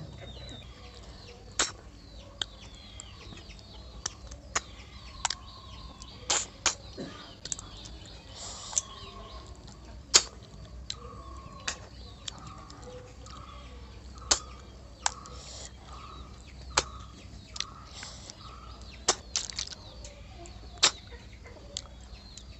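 Sharp, short sucking and smacking clicks at irregular intervals, about one a second, from snails being sucked out of their shells while eating. Behind them a hen clucks repeatedly, most steadily in the second half.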